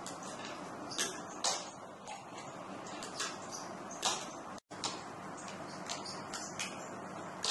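Fingerboard clacking on a wooden ledge box: about half a dozen sharp, irregularly spaced clicks as the small deck pops and lands, over a steady hiss. The sound drops out for a split second about halfway through.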